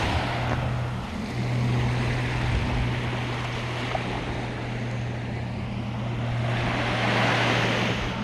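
Ocean waves washing up on the shore, swelling once near the start and again near the end, over a steady low hum.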